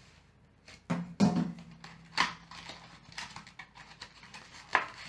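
Small cardboard retail box being slit open with a plastic safety cutter and opened by hand. There are several short, sharp scrapes and clicks amid light rustling of the packaging.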